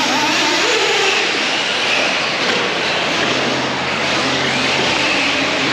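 Several electric off-road RC cars racing on a dirt track, their motors whining up and down in pitch as they accelerate and slow.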